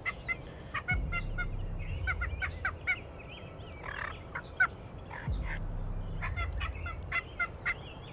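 Wild turkey tom gobbling several times, each gobble a rapid rattling run of notes. A low rumble sits under parts of it.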